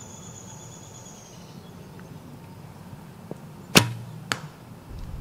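Recurve bow shot: a single sharp snap of the string on release about four seconds in, with a brief low hum after it, then a fainter click about half a second later.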